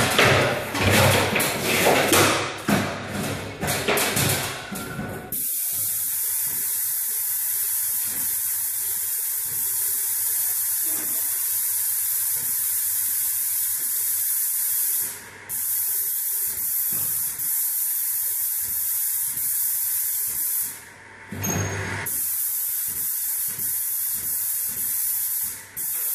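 Airless paint sprayer gun spraying: a steady high hiss in long passes that stops briefly twice and starts again. It is preceded by a few seconds of rougher, uneven noise.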